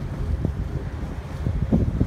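Wind buffeting the microphone in uneven gusts, a low rumbling rush with irregular thuds.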